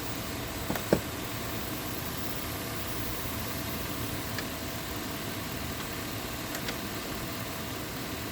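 2000 Chevy Silverado engine idling steadily with the air conditioning running during a refrigerant recharge, with a sharp click about a second in.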